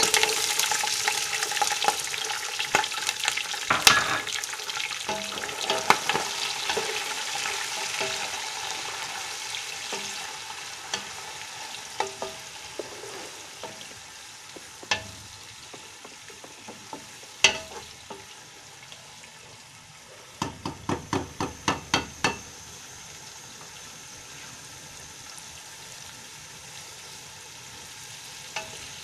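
Sliced onions sizzling in hot oil in a nonstick pot. The sizzle is loudest as they go in and fades over the first several seconds, while a wooden spatula stirs them and knocks against the pot, with a quick run of about eight knocks a little past two-thirds through.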